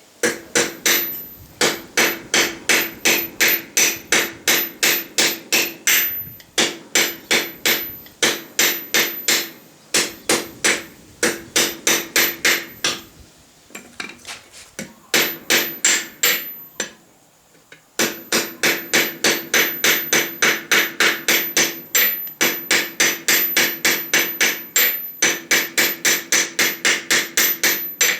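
Hand hammer forging a small piece of hot square steel bar on a homemade stake anvil: ringing strikes at about three to four a second, in runs with short pauses, and a steady, slightly faster run through the second half.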